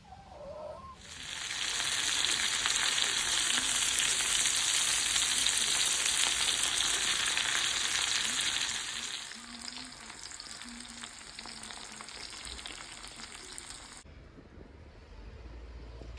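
Food sizzling in a hot pan: the sizzle starts about a second in and stays loud for several seconds, then settles to a quieter sizzle that stops abruptly near the end.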